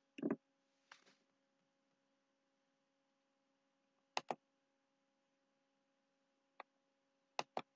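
Near silence with a faint steady hum, broken by a few sharp clicks: a short knock at the very start, a pair of clicks about four seconds in, a single click, and another pair near the end.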